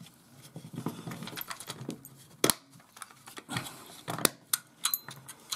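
Irregular light clicks and knocks of plastic multimeter parts being handled and fitted together by hand, the sharpest click about two and a half seconds in.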